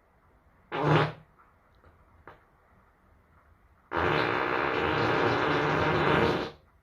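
A person farting: a short burst about a second in, then one long, even fart lasting nearly three seconds near the end.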